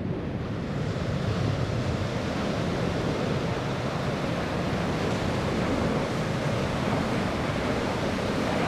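Steady rushing jet roar of a pair of USAF Thunderbirds F-16 Fighting Falcons flying overhead in close formation.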